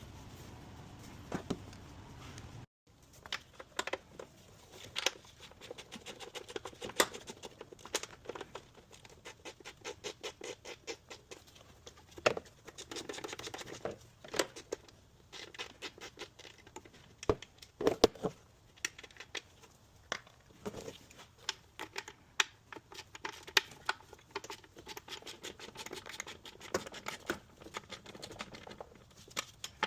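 Irregular small clicks, taps and knocks of hand tools and parts being handled during engine-bay work, with the sound cutting out briefly about three seconds in.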